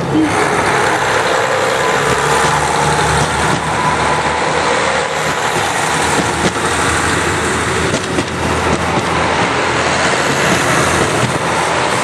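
KiHa 183 series diesel express train pulling out under power: its diesel engines run loudly and steadily as the cars roll past on the rails.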